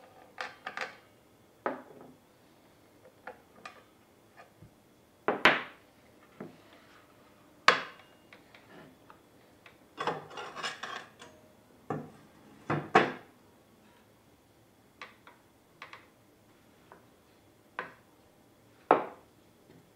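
Irregular metallic clicks, clinks and knocks as a Triton TA235CSL circular saw is handled for maintenance with its motor off. The sharpest knocks come about 5, 8 and 13 seconds in, with a run of rattling clinks around 10 to 11 seconds.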